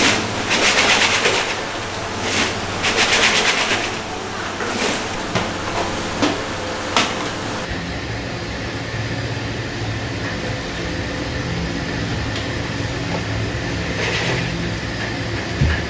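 A machine running with a steady low hum, after louder bursts of rattling noise in the first few seconds.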